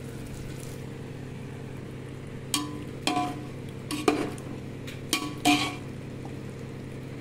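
Slotted metal spatula scraping and clanking against the side of a metal cooking pot while chicken masala gravy is stirred, five or six strokes from about two and a half seconds in, over a steady low hum.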